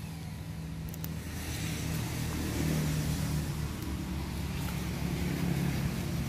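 A motor vehicle engine running nearby: a steady low hum that grows gradually louder.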